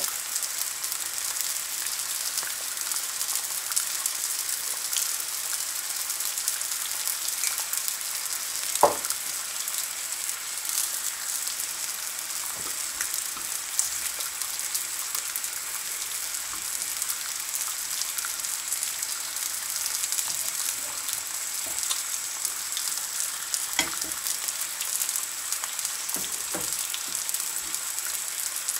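Back bacon rashers and black pudding slices frying in a carbon steel pan: a steady sizzle with scattered pops and crackles, the sharpest about nine seconds in.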